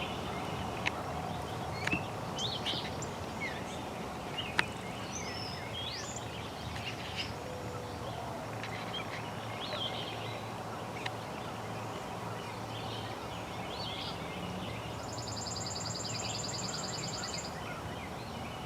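Songbirds chirping and calling with many short notes, and a rapid high trill near the end, over a steady low background rumble. There are a few sharp clicks in the first few seconds.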